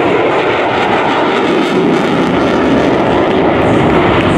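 Loud, steady jet noise from an F/A-18 Super Hornet's twin engines in afterburner as it climbs away.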